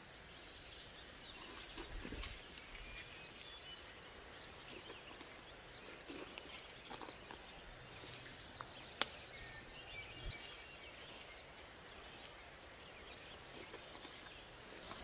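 Quiet outdoor ambience with faint bird chirps now and then, and soft rustles and clicks of figs being gathered off dry ground into wicker baskets. A sharper click comes about two seconds in and another near nine seconds.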